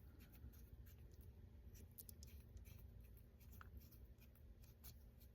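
Near silence with faint, irregular scratching and ticking as small parts of a night vision bridge are handled and twisted into place by hand.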